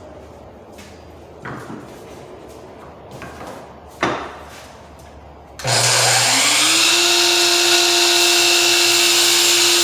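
A couple of light knocks, then an electric saw starts about halfway through, its motor whining up to speed and running steadily at full speed as it cuts a piece of crown molding to length.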